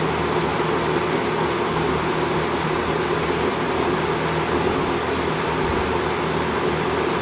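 1970s Westinghouse 20-inch box fan running steadily, freshly cleaned and oiled: an even rush of air over a low motor hum.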